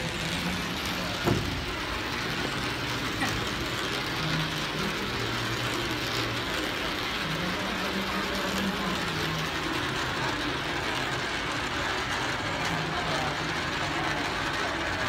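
A coin rolling round and round a spiral coin funnel (vortex wishing well), making a steady rolling whir as it circles down towards the centre hole.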